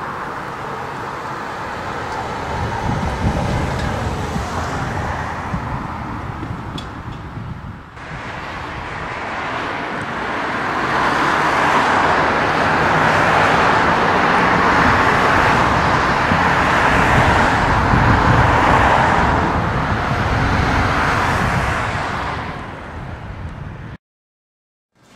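Road traffic: a vehicle's engine and tyre noise swells, holds for several seconds and fades away. The sound cuts off abruptly near the end.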